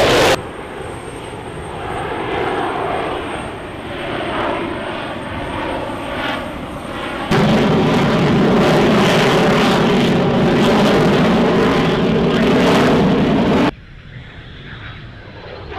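F-22 Raptor's twin turbofan jet engines during an air-show flying display: a loud, steady jet noise. It jumps abruptly louder about seven seconds in, then drops abruptly quieter near the end, as the footage cuts between shots.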